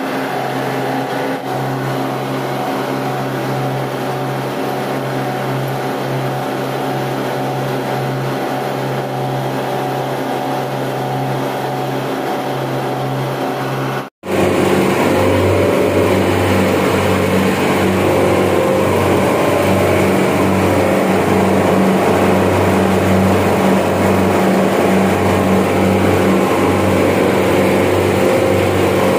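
Steady drone of running chiller machinery, with a low pulsing hum. It breaks off for an instant about halfway through and comes back a little louder and deeper.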